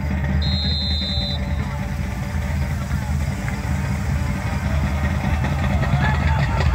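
A referee's whistle blown once, a steady high blast of about a second, shortly after the start, over a constant low rumble and crowd chatter.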